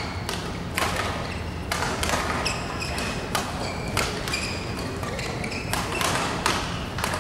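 Badminton rally: rackets striking the shuttlecock in sharp cracks about once a second, with court shoes squeaking on the floor between shots.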